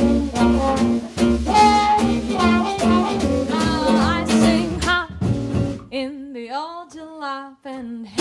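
Small swing jazz band playing: trumpet lead over gypsy-jazz guitar, upright bass and drums. About five seconds in the band drops out, leaving a solo voice singing without words in an unaccompanied break.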